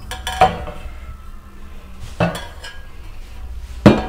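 Tableware being handled and set down on a kitchen countertop: three sharp knocks, the loudest near the end.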